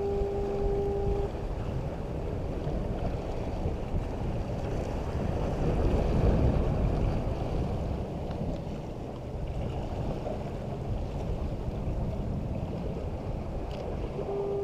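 Wind buffeting the microphone over the low rumble of surf, swelling around the middle. A steady tone sounds for about the first second and comes back right at the end.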